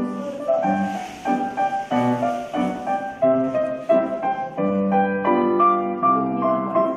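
Piano music: a steady, even run of struck notes and chords, the kind of accompaniment played for a ballet floor exercise.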